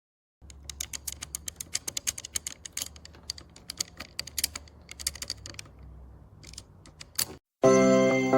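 Rapid, irregular light clicks, several a second, over a low hum. The clicking stops near the end and music starts.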